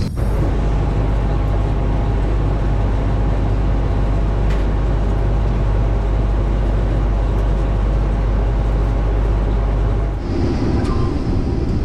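Case IH 2388 combine running steadily with a deep drone. About ten seconds in the sound changes to a different, higher running noise.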